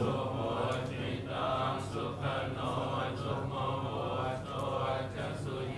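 Soft, continuous group chanting by several voices in a steady drone, over a low hum in the hall.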